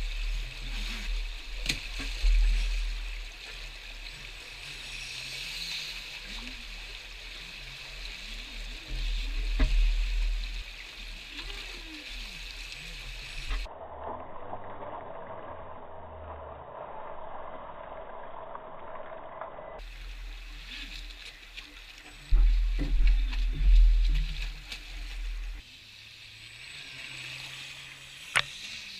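Rushing water of a fast, shallow rocky stream, a steady hiss and gurgle, with bursts of low wind rumble on the microphone. The sound changes abruptly twice at cuts between shots.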